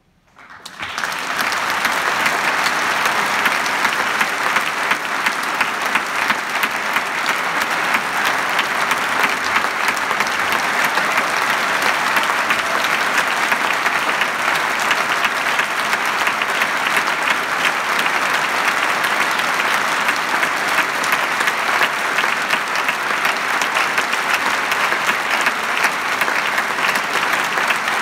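Theatre audience applauding. The clapping breaks out suddenly after silence, builds within about a second, and then holds steady and full.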